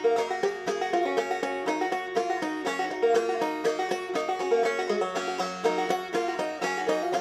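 Banjo music: fast plucked notes in a quick, even rolling pattern, in a bluegrass style.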